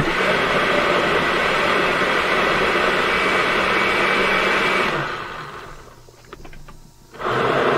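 Blender pureeing squash soup, motor running steadily for about five seconds, then winding down and starting up again near the end.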